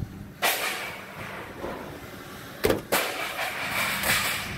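Scrap metal being unloaded onto a pile: a noisy clatter about half a second in, then a sharp bang just under three seconds in followed by more rattling.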